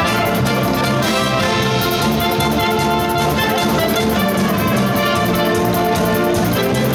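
High school wind band playing a Eurobeat-style Disney medley live: flutes, clarinets, saxophones and brass over a drum kit keeping a steady beat.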